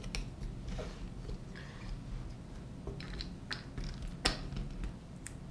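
Light clicks and knocks of hands handling small clear-plastic robot car chassis, several scattered taps with a sharper knock about four seconds in, over a low steady hum.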